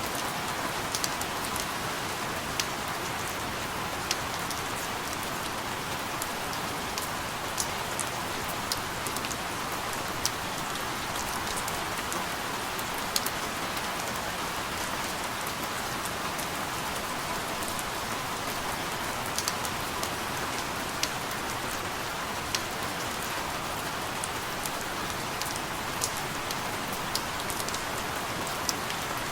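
Steady rain falling, an even hiss with scattered sharp drop ticks landing close by.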